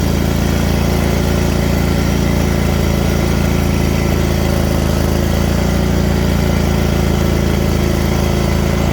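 A John Deere zero-turn mower's 23-horsepower Kawasaki FX V-twin engine running steadily, with no change in speed.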